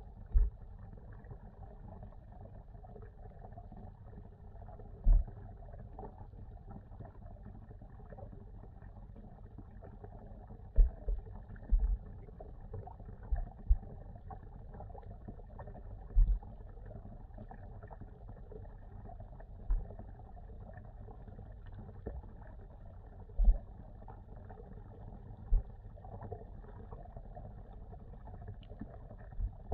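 Muffled underwater sound in a fish pond, heard through a submerged camera: a steady low wash of water noise with all the treble cut off, broken by a dozen or so short, dull low thumps at uneven intervals.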